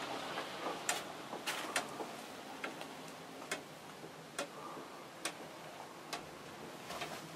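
Sharp, short ticks, irregular at first and then roughly one a second, over a faint steady hiss.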